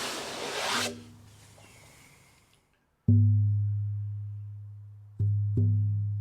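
Egg-shaped buffalo-skin shamanic frame drum on an oak frame being struck: a single deep boom that rings on and slowly fades, then two beats in quick succession about two seconds later.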